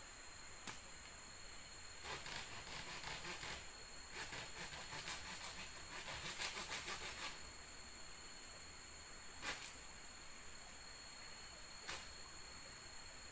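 Forest ambience with a steady high-pitched insect drone. Faint rasping rustles come and go through the middle stretch, and a few light knocks sound.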